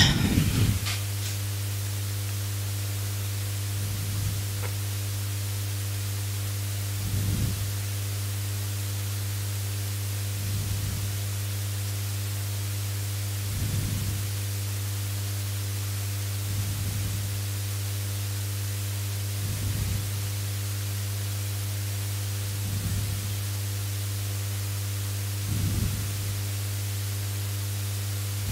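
Steady electrical hum and hiss from a headset microphone system left open, with soft low puffs about every three seconds from breathing on the microphone.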